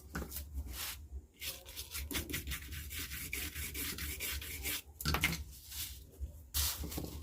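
Irregular scratching and rubbing of a soldering iron and hands working on a circuit board as a new 5532 op-amp IC is soldered in, over a low steady hum.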